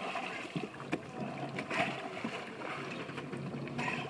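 Fishing boat's engine running steadily under water and wind noise, with scattered knocks and clicks.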